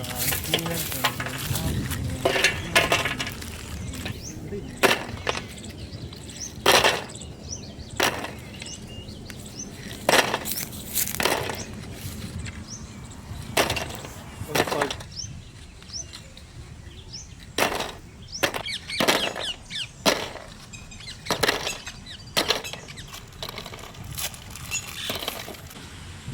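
Dry biscuits being snapped and broken by hand: a string of sharp, crisp cracks at uneven intervals, roughly one every second or two.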